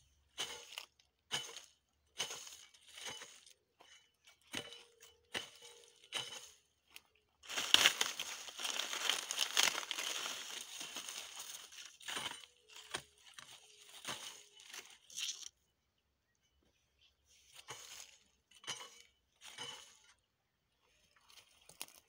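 Hoe strokes in dry weeds and dead corn leaves: short crackling, crunching scrapes about once a second, with a longer dense stretch of rustling and crackling in the middle.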